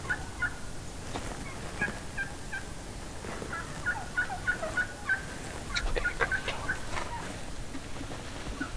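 Wild turkeys calling: a loose series of short, quick high notes, like clucks and yelps, that thickens in the middle, with a few sharp clicks mixed in.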